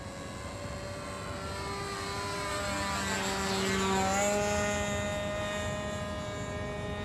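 O.S. 25 FX two-stroke glow engine of a radio-control high-wing model plane running steadily in flight. It gets louder as the plane passes about four seconds in, then fades.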